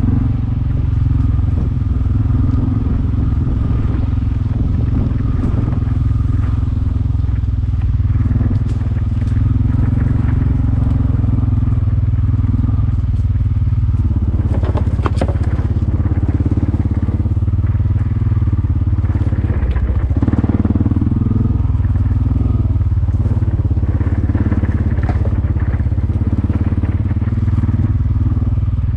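Gator utility vehicle's engine running steadily while driving along a trail, with occasional clicks and rattles over it.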